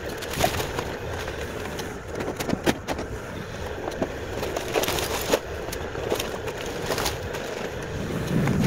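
Bobcat compact excavator's diesel engine running steadily as its arm and bucket break and move wooden garage debris. Irregular cracks, knocks and clatter of splintering boards and falling wreckage sound over the engine.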